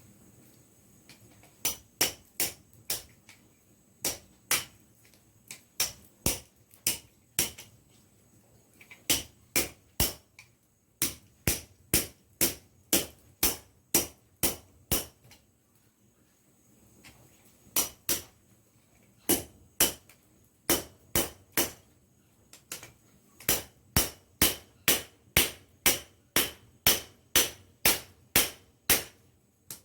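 A small wrench used as a hammer, striking hot metal on a chunk of steel serving as an anvil: sharp metal-on-metal blows in runs of about two to three a second, with brief pauses between runs about a third of the way in, around halfway and about three-quarters through.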